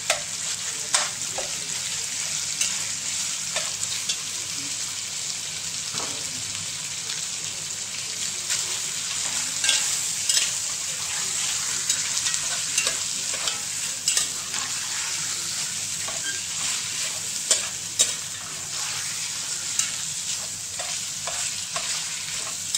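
Raw chicken thigh chunks sizzling steadily in a cast iron pot on high heat, with a metal slotted spoon scraping and knocking against the pot every few seconds as the meat is stirred.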